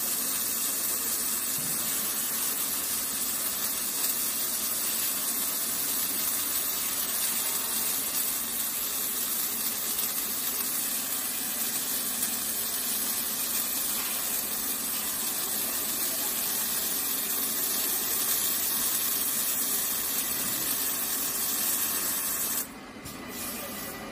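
Several arc-welding torches of an automatic cuplock scaffolding welding machine welding at the same time, giving a steady hiss. Near the end the hiss cuts off suddenly as the arcs stop.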